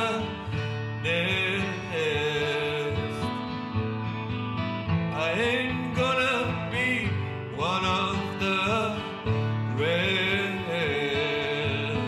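Country-style song with acoustic guitar backing and a lead melody line that slides up and bends in pitch in repeated phrases.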